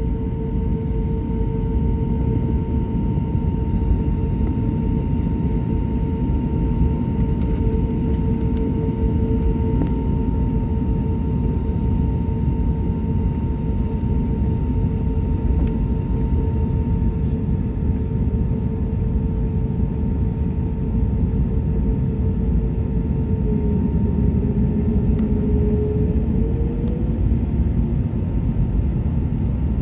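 Airliner cabin noise: a steady low rumble from the jet engines with a steady whine over it, its pitch dipping slightly about three-quarters of the way through and rising back.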